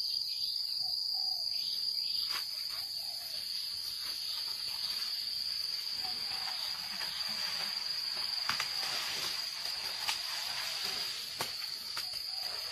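Jungle insects, crickets or cicadas, holding one steady high-pitched buzzing note. A few faint snaps or cracks come through the vegetation now and then.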